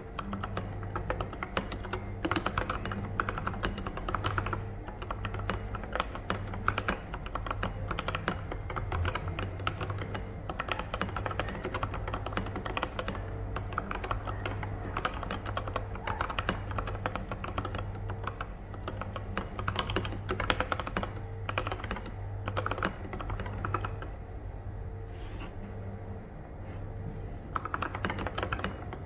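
Typing on a mechanical keyboard with lubed and filmed Durock Koala tactile switches and OSA-profile keycaps: a continuous stream of keystrokes. It eases off for a few seconds in the latter part, then picks up again near the end.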